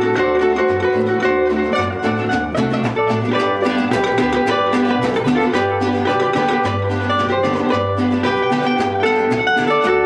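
Mariachi trio playing an instrumental passage: a guitar and a vihuela strummed in a quick steady rhythm over plucked bass notes from a guitarrón.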